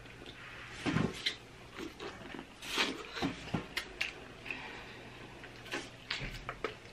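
Close-up eating noises: irregular wet smacks, slurps and chewing as buttery, sauce-dipped corn on the cob is bitten and chewed, a little louder about a second in and around the three-second mark.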